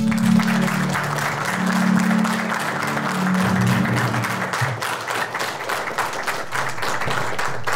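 Audience applauding: a dense crackle of many hands clapping. Under it the backing music's last low notes are held, then stop a little past the halfway point.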